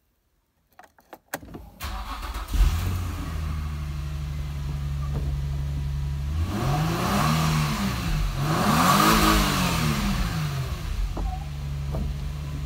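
Car engine starting after a few clicks, then running steadily, its note rising and falling twice as it is revved or accelerated before settling back to a steady run.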